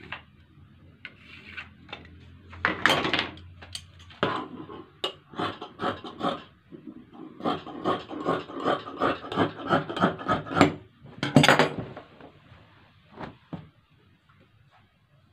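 Fabric scissors cutting through folded cloth on a wooden table in a run of short, even snips, about three or four a second. Before that comes a scraping stroke of marking along a ruler. Near the end there is a louder rasp, then cloth rustles as it is gathered up.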